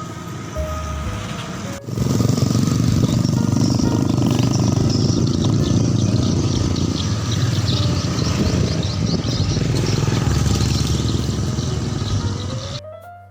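Motorcycle running with steady road noise, loud and continuous. It cuts in suddenly about two seconds in, over fading background music, and stops just before the end, where piano music begins.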